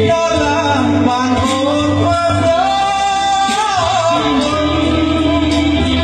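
Karaoke: a man singing a slow song into a microphone over an instrumental backing track, his voice amplified through the room's speakers.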